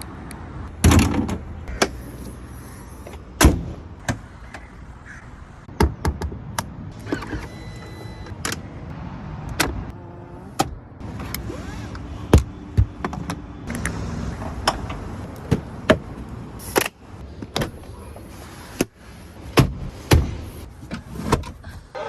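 Audi SUV's doors and electric fittings being worked: a string of sharp door and latch clunks and clicks, several of them loud, with short stretches of electric motor whirring from the power windows.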